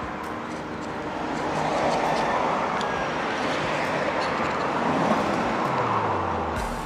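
Road traffic going by, with one vehicle's engine note falling in pitch as it passes near the end.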